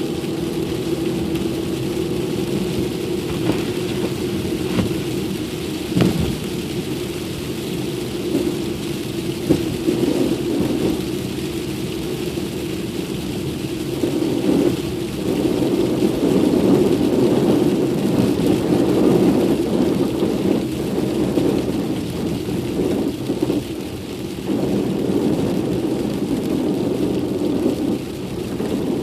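Car driving on a snowy road, heard from inside the cabin: a steady low rumble of tyres and engine, with a few short knocks and a louder stretch in the middle.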